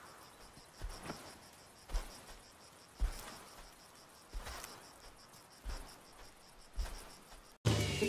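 Insects chirping in a fast, even, cricket-like pulse, with a soft thud or rustle about once a second. Near the end it cuts off abruptly and a louder music jingle begins.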